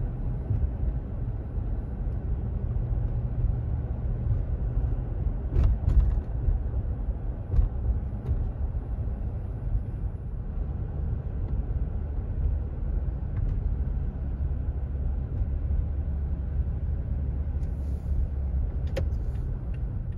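Steady low road and drivetrain rumble inside the cab of a 2017 Toyota Tacoma pickup on a test drive, with a few faint knocks or clicks about six seconds in and again near the end.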